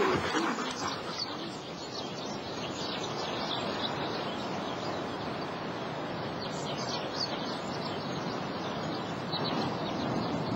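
Outdoor wild ambience: birds chirping in short, scattered calls over a steady background hiss.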